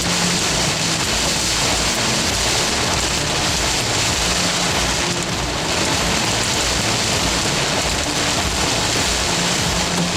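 Heavy wind-driven rain from a severe bow-echo thunderstorm: a loud, steady, dense rush of downpour that does not let up.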